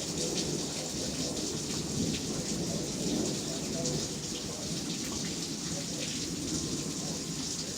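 Steady rain falling during a thunderstorm, with a low rumble of distant thunder that swells a little a couple of seconds in.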